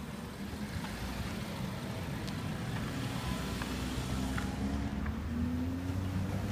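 A car's engine running at low speed, a low hum that grows louder from about halfway through.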